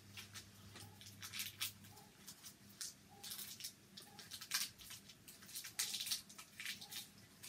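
Thin plastic wrappers crinkling and rustling in irregular bursts as individually wrapped marshmallows are unwrapped by hand.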